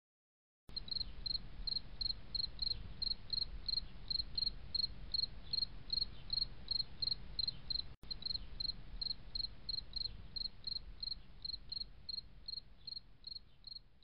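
An insect chirping steadily, about three short high-pitched chirps a second, over a faint low rumble. It begins just under a second in, breaks off for an instant about eight seconds in, and fades toward the end.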